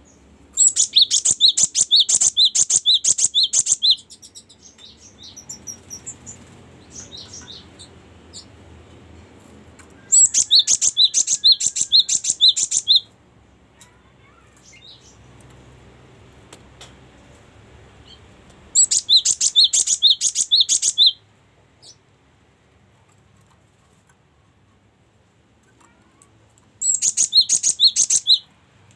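Caged cinereous tit singing: four bursts of fast, evenly repeated high notes at about four a second, each burst lasting two to three and a half seconds, with softer chirps in between.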